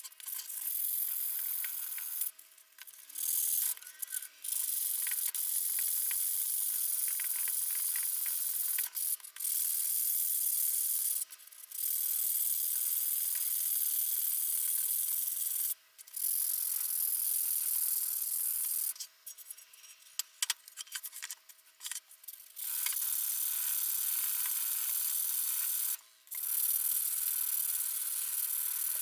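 Hand scrubbing with an abrasive on a tool part. It comes as steady, hissing strokes in stretches of a few seconds each, broken by short pauses.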